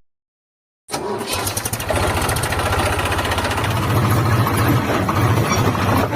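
After about a second of silence, a small motor cuts in and runs steadily with a low mechanical hum.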